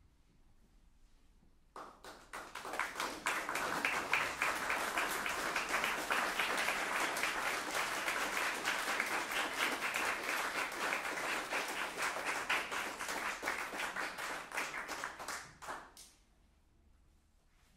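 Audience applauding: the clapping begins about two seconds in, swells quickly to a steady level, then dies away a couple of seconds before the end.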